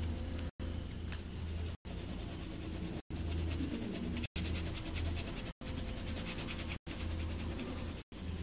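Coloured pencil shading on paper: rapid scratchy strokes over a steady low hum, cut by short silent gaps about every second and a quarter.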